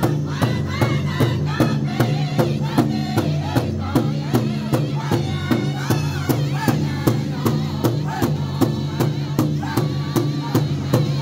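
Powwow drum group singing together around a big drum, the players striking it in unison in a steady, even beat. High-pitched voices carry the song over the drum.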